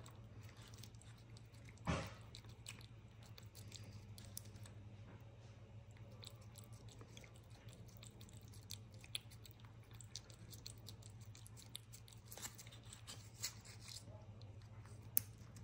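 A cat licking a lickable puree treat from the tip of a squeeze tube: faint wet licking clicks in quick irregular runs, with a few louder crackles, the strongest about two seconds in. A steady low hum sits underneath.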